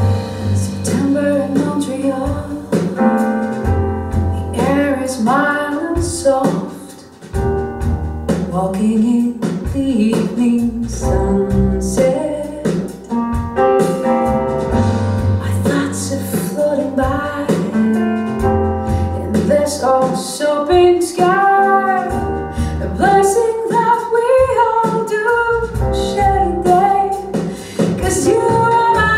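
A woman singing with piano accompaniment and deep bass notes, played back over a pair of floor-standing hi-fi loudspeakers in a bare, live-sounding room.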